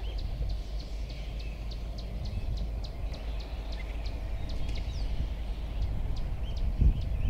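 Outdoor ambience: a steady low rumble under a continuous series of short, high chirps, about two or three a second, with a single low thump near the end.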